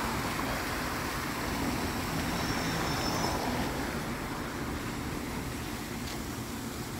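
Steady rushing splash of a park fountain's water, easing off after about three and a half seconds, with street traffic behind it.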